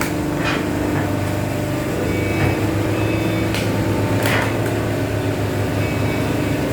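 Hydraulic power unit of a horizontal cardboard baling press running with a steady low hum, with a few short knocks or scrapes from the machine about half a second, two and a half, three and a half and four seconds in.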